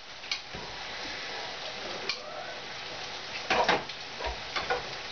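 Food sizzling in a pan on the stove, a steady hiss, with a few sharp clinks of a utensil against the pan, most of them about three and a half to five seconds in.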